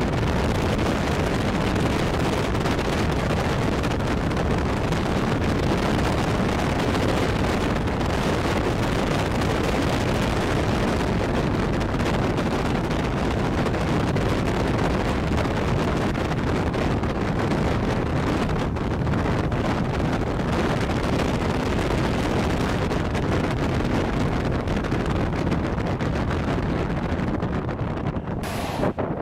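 Steady rushing wind and road noise from a car driving at highway speed, with wind buffeting the microphone.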